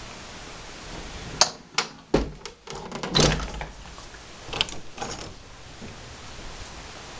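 Closet door being handled and pushed shut: a run of sharp clicks and knocks from the door and its latch, spread over a few seconds.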